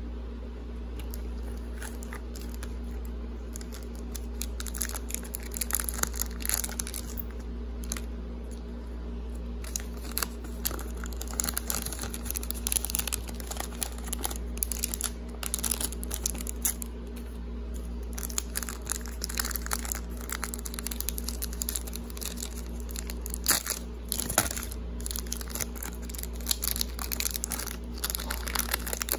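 Foil trading card pack crinkling and crackling in irregular bursts as it is handled and torn open, over a steady low hum.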